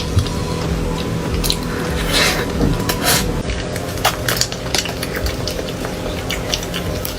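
Close-miked eating of cake: scattered sharp clicks and short wet, squishy crackles, several times a second at places, over a steady low background hum.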